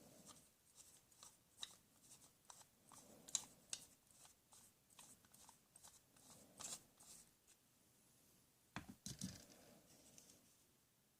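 Faint scattered clicks and light taps of small hard objects being handled, with a few louder knocks about nine seconds in.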